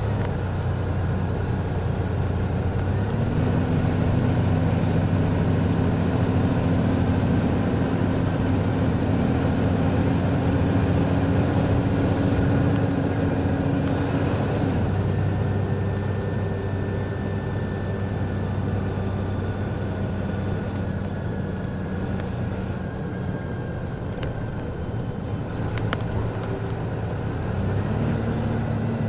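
Detroit Diesel Series 60 inline-six of an MCI D4000 coach idling steadily with the bus stopped. The engine's note steps up about three seconds in, holds for around ten seconds, then drops back, and rises again near the end.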